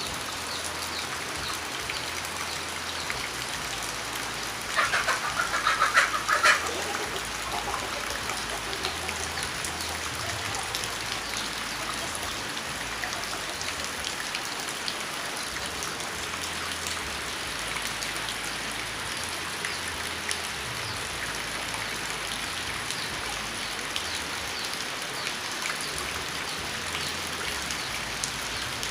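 Steady rain falling, an even hiss of drops throughout. About five seconds in, a louder animal call, likely a bird, cuts through for under two seconds.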